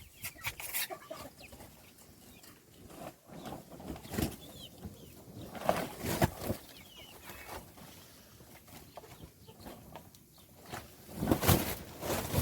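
Baby chicks peeping, with scattered short taps and rustles and a louder burst of noise near the end.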